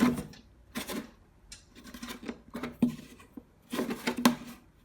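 Light handling clicks and knocks in three short clusters, about a second in, around two to three seconds in, and near the end: parts of the pressure washer being touched and moved.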